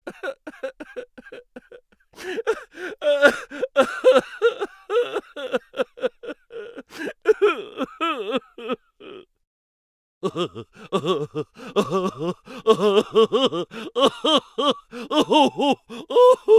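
A comic voice sound effect: rapid chattering, giggle-like vocal sounds, many short pitch swoops a second, in two runs separated by a gap of about a second.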